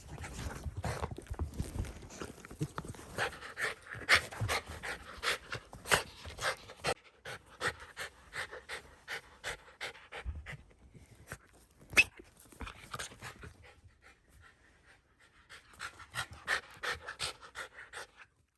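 Shiba Inu panting quickly and rhythmically, about two to three breaths a second, pausing briefly a few times. A single sharp click about twelve seconds in.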